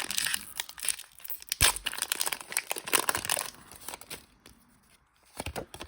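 Foil booster-pack wrapper crinkling as it is handled and torn open, with a sharp knock about a second and a half in; the rustling dies down after about four seconds, leaving a few faint clicks.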